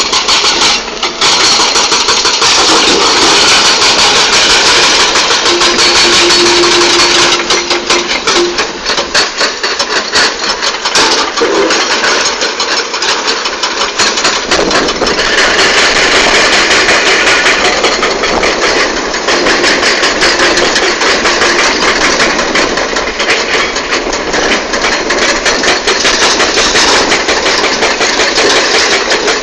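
Crawler excavator working: its diesel engine runs under load with a continuous clatter of rapid knocks and rattles, and a brief steady whine comes in about six seconds in.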